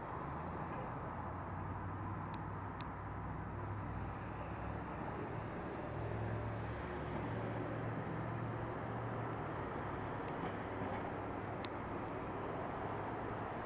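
Steady street traffic noise, a low vehicle hum under a wash of road sound, a little stronger from about halfway through, with a few faint ticks.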